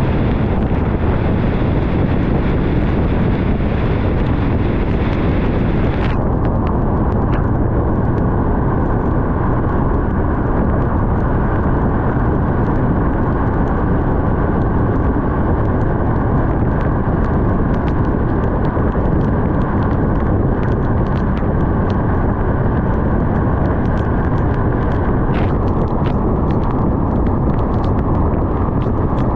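Steady road and wind noise from a car driving at speed, a loud low rumble. A few seconds in, the higher hiss drops away suddenly, leaving the rumble with a faint steady tone above it.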